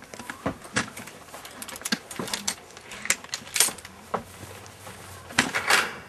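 Irregular clicks, knocks and rattles, as of hard objects being handled, with a loud cluster near the middle and another just before the end.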